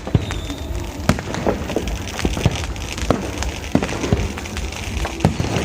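Fireworks going off: a string of sharp pops and bangs at uneven intervals over a low rumble.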